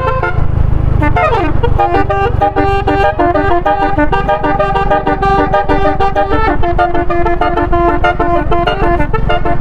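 Bus 'basuri' telolet musical horn playing a quick stepping tune, with a falling swoop about a second in, over a low engine rumble.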